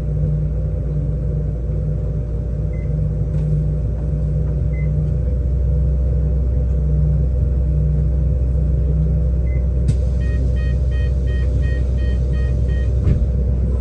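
BYD K8 2.0 battery-electric bus running, with a steady low hum over road rumble. About ten seconds in the hum drops away, a click is heard, and a run of quick electronic beeps, about two or three a second, lasts about three seconds.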